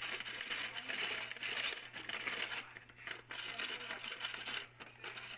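Hand-cranked ice shaver being turned, its blade scraping and crunching ice into a bowl: a continuous gritty shaving noise broken by a few short pauses.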